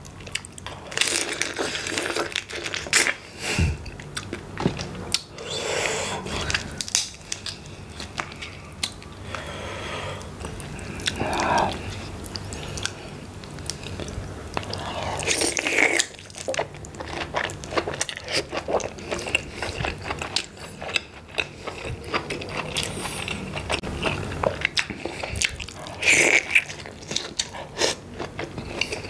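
Close-miked eating sounds: biting into and chewing sauce-coated giant tiger prawn, with occasional crunches and wet mouth noises in irregular bursts.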